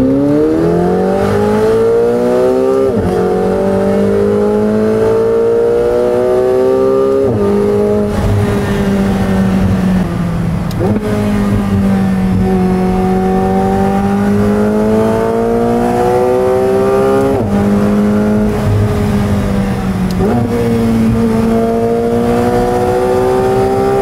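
McLaren 720S twin-turbo V8 through a Valvetronic Designs titanium exhaust with stock downpipes, accelerating through the gears. Its note climbs steadily in pitch, then drops sharply at each upshift, about five times.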